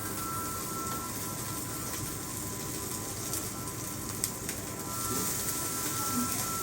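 Steady hiss and hum of an omelette station, with a faint sustained tone and a few light clicks. The frying sizzle of the egg in the pan grows louder about five seconds in.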